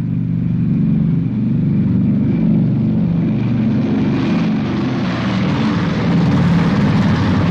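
The four Wright R-3350 eighteen-cylinder radial engines of a Boeing B-29 Superfortress running together in a loud, steady, deep drone. About four seconds in, a rushing hiss grows over the drone.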